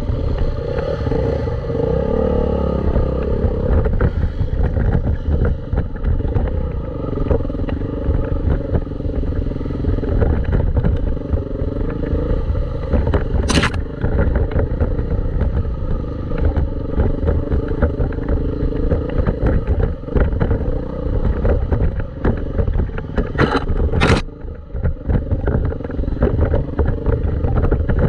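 Dirt bike engine running, its pitch rising and falling with the throttle over a heavy low rumble. Sharp knocks come once about halfway through and twice in quick succession near the end.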